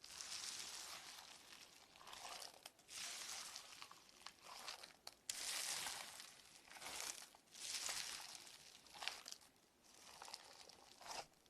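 Slime being squeezed and stretched by hand: faint crackling in repeated bursts about once a second, with a few sharp pops.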